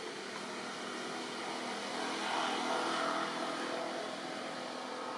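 A motor vehicle passing, its engine noise swelling to a peak about halfway through and then fading.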